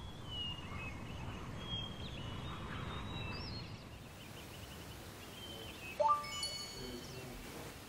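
Morning ambience of birds chirping over a low rumble. About six seconds in, a single bright chime rings out and dies away over about a second.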